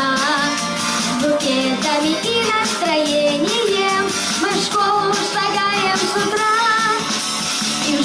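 A child singing a pop-style song over an instrumental backing, the melody moving steadily from note to note.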